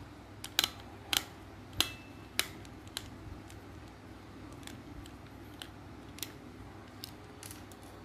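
Sharp little clicks and taps of a small screwdriver and the plastic casing of an air-conditioner remote being handled and unscrewed, about half a dozen in the first couple of seconds, then a few fainter ticks.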